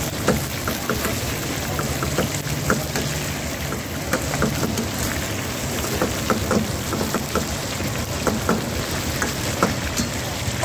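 Chicken pieces frying in hot oil in an iron karahi wok, a steady sizzle full of small crackling pops.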